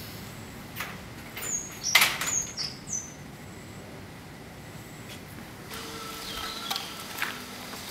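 Aluminium security screen door clicking and latching shut, with a sharp knock about two seconds in as the loudest sound, and a few short high bird chirps around it.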